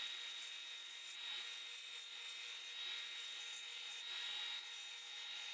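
Oscillating belt sander running with a steady high whine while the edge of a wooden template is pressed against the belt and sanded.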